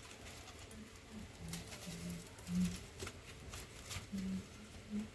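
A dove cooing in a series of short low notes, with scattered sharp knocks and scrapes around it.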